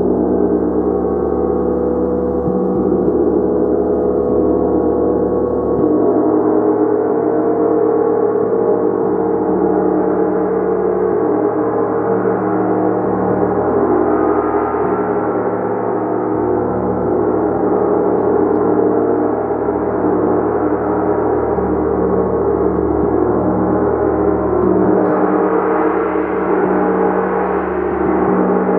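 Gong played continuously, a loud, steady wash of many overlapping ringing tones with no separate strikes standing out, growing a little brighter near the end.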